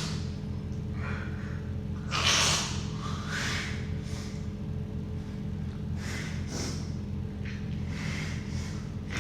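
A woman's sneezing fit: a loud sneeze about two seconds in, then a string of sharp sniffing and gasping breaths between further sneezes.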